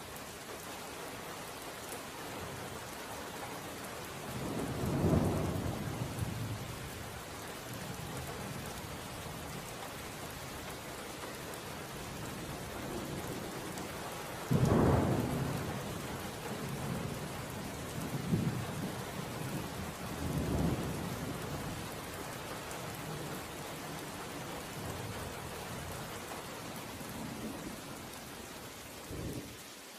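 Steady rain with several rolls of thunder, the biggest about five seconds in and about fifteen seconds in, with smaller ones a few seconds later.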